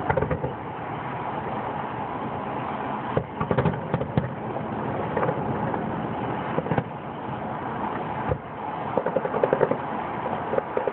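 Distant fireworks going off in irregular bangs and pops over a steady background rush. There is a quick run of pops about three and a half seconds in and another cluster near the end.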